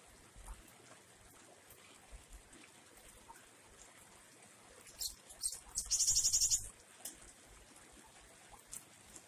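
Caged glatik wingko songbird calling: a few sharp high notes about five seconds in, then a fast high trill of under a second. Faint rain dripping with scattered small ticks sits underneath.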